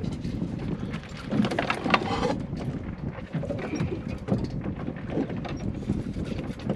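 Wind buffeting the microphone on an open boat at sea, a steady rough rumble, with a brief louder burst of noise about two seconds in.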